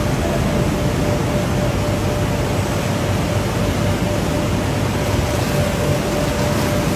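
Steady machinery noise of a potato chip production line, its conveyors and processing equipment running, with a constant hum-like tone in it.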